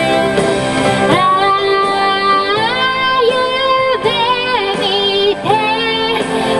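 A woman singing a song live into a microphone over instrumental backing music, in long held notes that step up in pitch about a second in and again near the middle, some of them wavering in vibrato.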